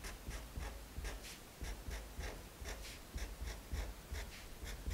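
Felt-tip marker drawing short tally strokes on paper, a quick run of brief scratchy strokes about three a second.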